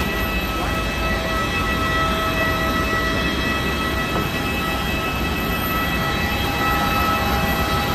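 Jet aircraft noise: a steady rumble with a steady high whine made of several even tones, from an airliner's engines or auxiliary power unit running.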